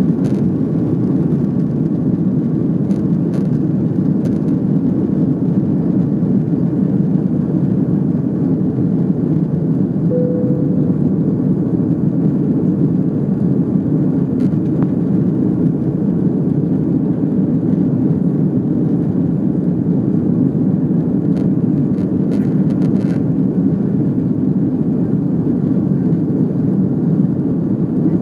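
Airbus A330 jet engines at takeoff power during the initial climb, heard inside the cabin as a loud, steady rumbling noise. A brief faint tone sounds about ten seconds in.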